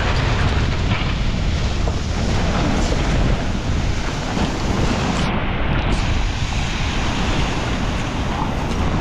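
Strong wind buffeting the microphone: a loud, steady rumbling rush.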